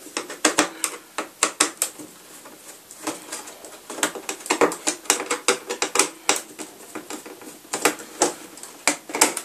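A screwdriver clicking and scraping against screws and the plastic chassis of an opened Casio keyboard as screws are loosened from the key contact board: irregular sharp clicks, some in quick clusters, with a short lull about two seconds in.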